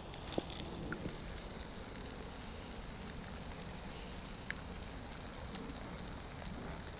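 Food frying quietly in a cast iron frying pan over a wood campfire, a steady sizzle with a couple of small crackles from the fire.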